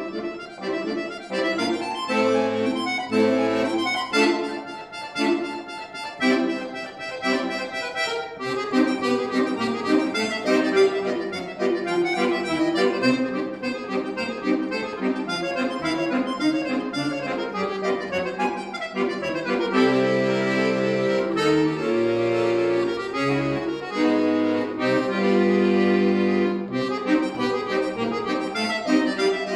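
Scandalli piano accordion played solo: quick, busy runs of notes over accompaniment, then from about twenty seconds in, longer held chords over low bass notes.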